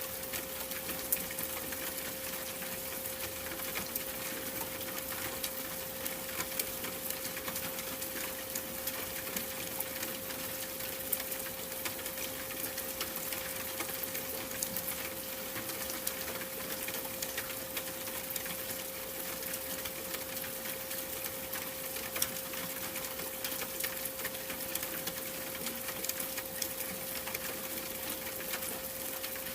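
Steady 528 Hz pure sine tone held unbroken, over a constant hiss sprinkled with fine crackling ticks.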